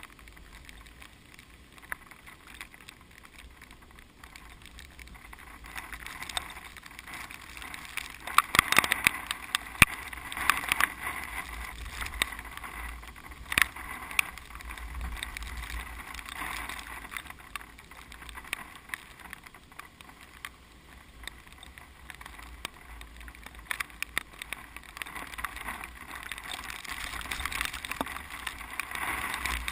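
Typhoon wind gusting through a field of ripening rice, a rushing rustle that swells about eight seconds in and again near the end, with scattered sharp crackles.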